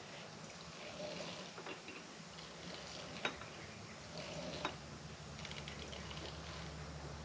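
A few light metal clicks and knocks from handling tools and parts, the sharpest about three seconds in, over a low steady hum that grows louder about five and a half seconds in.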